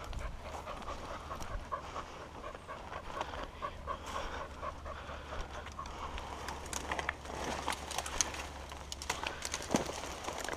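A hunting dog panting fast, about three pants a second. In the second half, dry brush crackles and snaps as it is pushed through.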